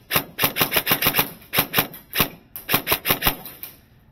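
Airsoft guns firing rapid strings of sharp shots, several quick bursts with brief pauses between them, stopping shortly before the end.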